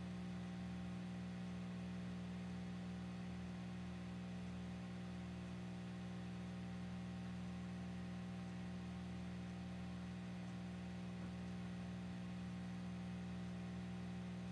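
Steady low electrical hum, with no other sound.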